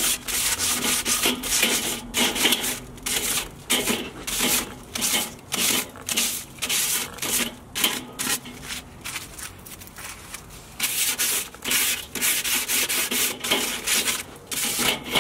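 A ball of crumpled aluminium foil scraped back and forth over the hot cooking grate of a Weber charcoal kettle grill, cleaning the grate. It makes a rough rasping in quick repeated strokes, two or three a second, easing off for a while past the middle.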